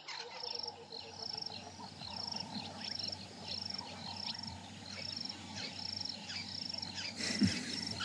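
Evening insect chorus from the grassland: a high chirp repeating at an even pace, a little over one a second, over fainter calls and a low steady hum. A short low thump comes near the end.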